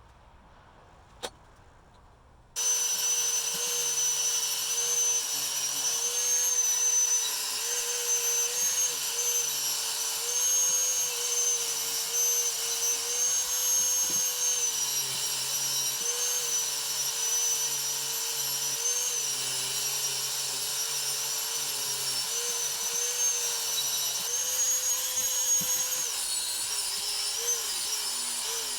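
Small electric power tool switching on about three seconds in and running steadily at high speed. Its pitch dips and recovers again and again as it is pressed into the work and eased off.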